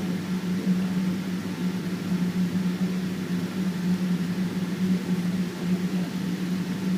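Steady aircraft cabin noise inside a Boeing 777-200ER: a constant low engine drone under an even rushing hiss.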